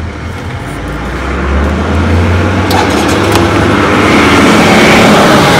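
Yamaha Fascino scooter's single-cylinder engine running as the scooter sets off, with road noise that builds over the first couple of seconds and then holds steady and loud.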